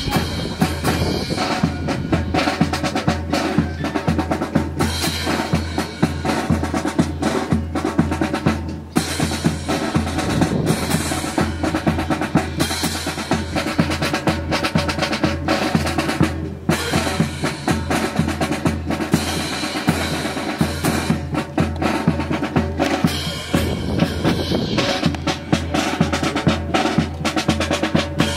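Drum-heavy music with a steady beat, snare and bass drum, played continuously.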